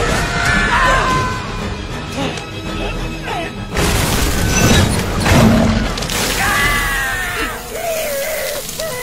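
Disaster-film soundtrack: dramatic music over booms and crashing, shattering debris as a road deck breaks apart. A loud crash comes in about four seconds in, and there is sizzling from glowing wreckage near the end.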